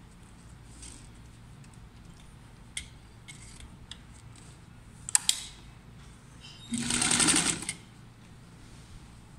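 Electric sewing machine stitching through fabric in one short burst of about a second, starting nearly seven seconds in. Before it come a few sharp clicks.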